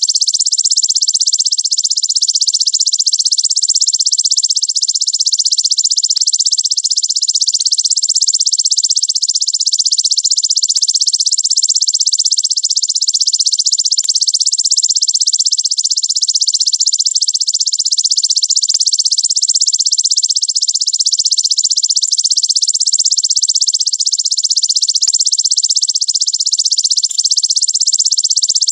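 Belalang raja ('king grasshopper') insect call: a loud, high, very fast and dense continuous trill that runs steadily without a break.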